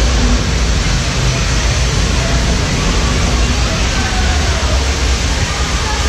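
Artificial rain shower pouring onto a pool and foliage: a steady, dense hiss of falling and splashing water.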